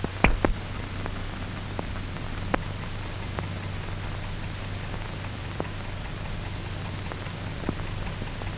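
Surface noise of an old optical film soundtrack: a steady hiss and low hum, with scattered irregular crackles and pops. The loudest pair of pops comes about a quarter second in.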